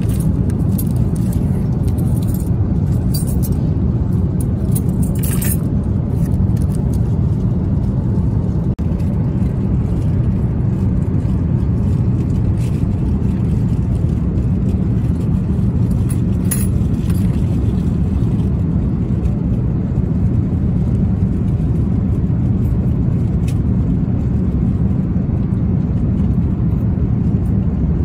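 Steady low roar of a jet airliner's cabin in cruise, with a few faint rustles and clicks as the meal tray's napkin and cutlery are handled.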